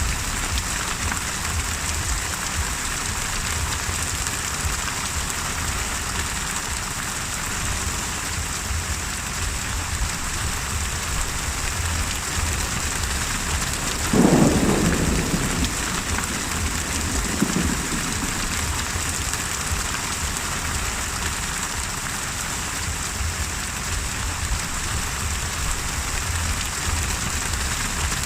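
Steady heavy rain with a hiss, broken about halfway through by a sharp clap of thunder that rumbles off, followed a few seconds later by a second, weaker rumble.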